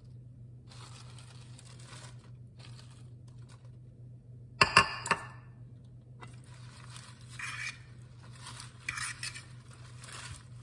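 Salad greens rustling as they are tipped into a salad bowl, with a sharp clinking clatter against the bowl about halfway through. In the last few seconds a fork tosses the leaves, rustling and clinking against the bowl.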